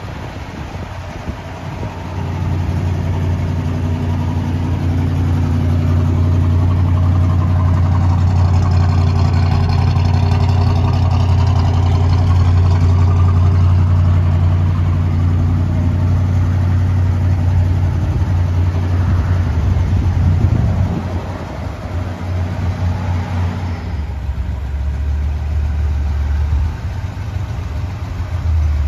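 1965 Oldsmobile 442's 400 cubic-inch V8 idling steadily. It grows louder about two seconds in and stays loud until about twenty seconds in, after which the idle sounds lower and a little quieter.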